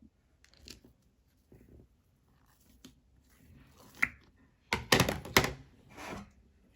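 Shaving-foam slime being pressed and squeezed by hand: soft scattered clicks and small pops, then a louder run of crackling squishes about five seconds in.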